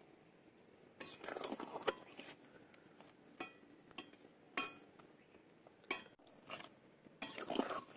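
Metal spatula scraping and knocking against a metal kadai as fried egg-potato balls are turned in the gravy, in several short bouts with pauses between.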